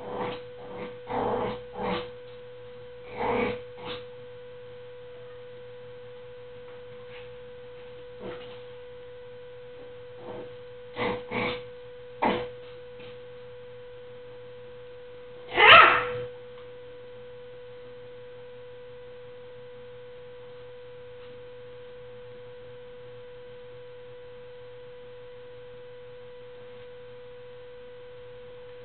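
Pomeranian puppies making a scattering of short sounds, in clusters over the first dozen seconds with the loudest one about sixteen seconds in, over a steady hum. The last dozen seconds hold only the hum.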